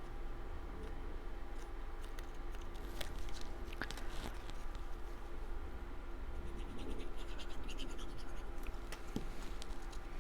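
Hands handling and scraping cardstock pieces on a work surface: scratchy paper rustling with scattered small clicks and taps, busier in the second half.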